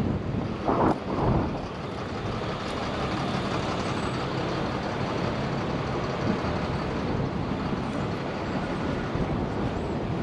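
City street traffic: a steady noise of passing vehicles, with a couple of short louder sounds about a second in.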